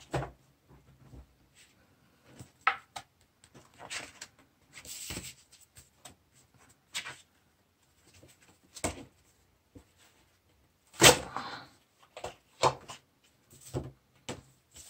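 Scattered knocks, clicks and rustles of art supplies and paper being handled on a desk, about a dozen separate sounds with quiet gaps between them and the loudest knock about eleven seconds in.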